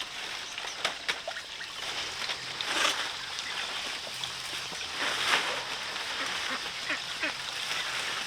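Poultry calling: a dense run of short, harsh, quack-like calls that overlap throughout.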